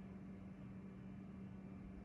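Faint steady low hum with an even hiss from a charge case's cooling fans running while the iCharger 308 Duo lipo charger charges a battery.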